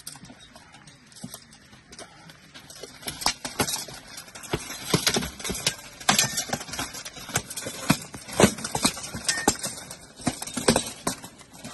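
Armored sword-and-shield sparring: an irregular, rapid series of sword blows knocking on shields and armor, starting about three seconds in.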